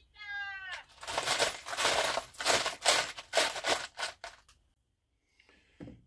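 Cordless impact driver driving a screw into a microwave's metal casing: a brief motor whine, then about three and a half seconds of rapid rattling impacts that stop suddenly. A faint knock follows near the end.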